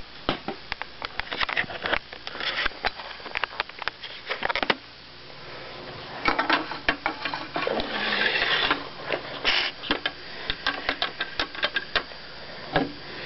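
Handling noise from a handheld video camera being moved about and then set down and adjusted on a table: rapid, irregular clicks and knocks with bursts of rustling.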